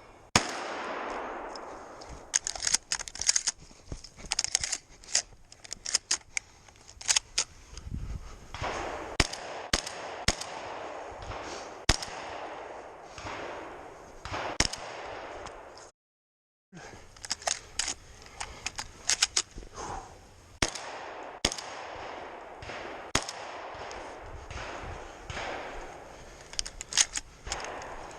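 Shotgun fired again and again in quick strings of sharp shots, with handling and movement noise between the strings. The sound drops out completely for under a second about halfway through.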